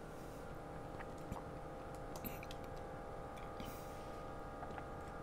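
A few faint, scattered computer mouse clicks over a steady low electrical hum.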